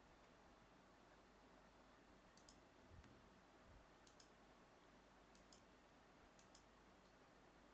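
Faint computer mouse clicks against near-silent room tone: four clicks spaced about a second or more apart, each a quick double tick of the button pressing and releasing.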